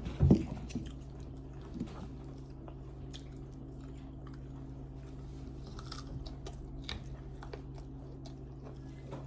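A person eating close to the microphone: chewing and small wet mouth clicks, with one louder sound just after the start, over a steady low hum.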